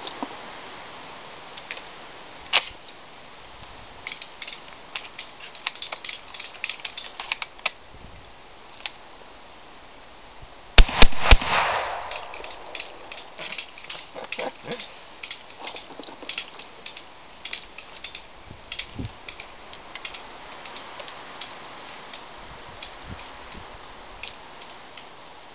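Gunshots: three sharp reports in quick succession about eleven seconds in, ringing out briefly afterwards. Before and after them come scattered small clicks and crackles.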